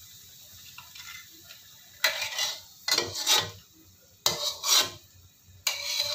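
A metal spatula scraping across the bottom of a wok in several separate strokes, starting about two seconds in, as fried taro pieces are scooped out.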